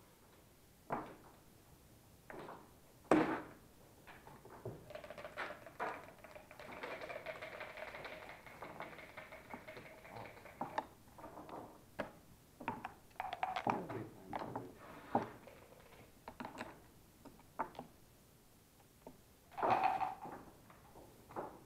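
Backgammon checkers knocking and clicking on the board as they are moved, in scattered sharp knocks, the loudest about 3 s in. Near the end comes a louder cluster, the rattle of the dice being shaken in a dice cup.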